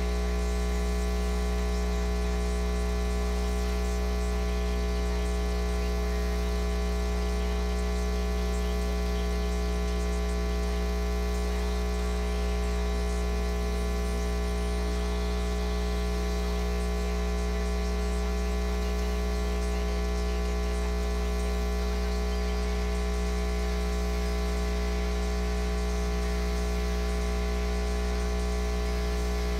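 Steady electrical mains hum and buzz with a hiss of static: a strong low drone with many steady overtones above it.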